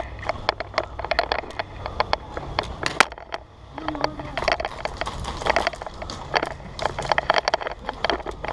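Airsoft guns firing during close-quarters play: a rapid, irregular run of sharp clicks and snaps, sometimes in quick clusters, over a steady low rumble.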